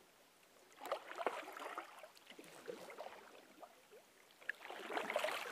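Kayak paddles dipping into and pulling through calm river water, with splashing and dripping. The strokes start about a second in, ease off in the middle, and pick up again near the end.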